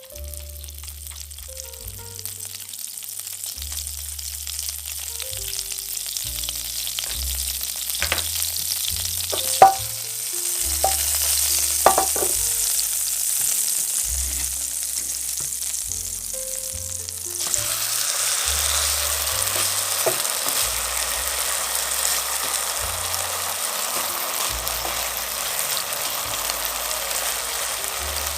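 Beef steak frying in butter in a hot pan: a steady sizzle that grows louder, with a few sharp clicks around the middle. About seventeen seconds in, the sizzle suddenly becomes louder and fuller. Soft background music with low bass notes plays underneath.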